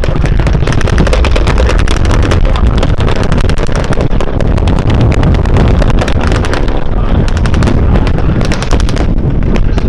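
Airshow battle reenactment: rapid machine-gun fire and pyrotechnic explosions over a steady low rumble of low-flying warbird engines, with wind on the microphone.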